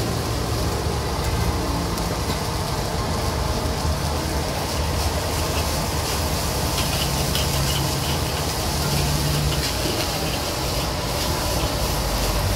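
Fried rice being stir-fried in a steel wok over a gas burner: a steady rushing noise of the flame and sizzling rice, with light clinks of the metal spatula against the wok.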